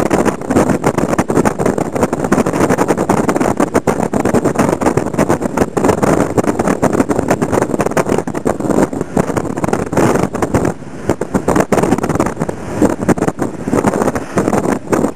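Noise of riding in a moving road vehicle: a steady rumble of engine and road, broken all the while by rapid crackling buffets.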